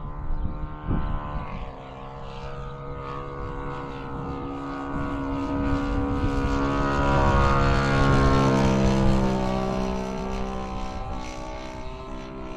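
Radio-controlled model airplane's motor and propeller droning overhead with a steady pitch, growing louder to a peak about eight seconds in and then fading as it passes. Wind rumbles on the microphone in the first couple of seconds.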